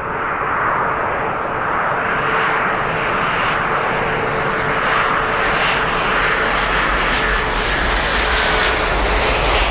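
Aircraft engine sound effect: a steady rushing engine noise with a faint low hum, growing a little louder over the first few seconds.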